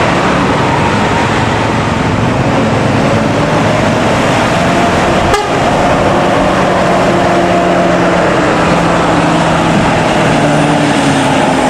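Engine and road noise heard from aboard a moving odong-odong, a passenger vehicle built on a truck. It runs loud and steady, and the engine hum shifts in pitch now and then. There is a brief break about five seconds in.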